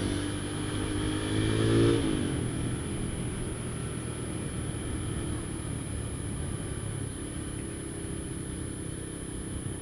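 Honda Tiger motorcycle's single-cylinder engine accelerating, its pitch rising for about two seconds, then easing off and running steadily at a lower note while riding on city streets.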